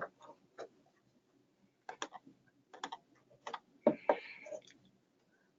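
Irregular clicks and taps of typing on a computer keyboard, sparse at first, with a louder cluster of keystrokes about four seconds in.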